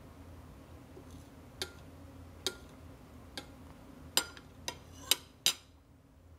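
Metal spoon clinking against a plate: about seven sharp, unevenly spaced clinks, the loudest near the end.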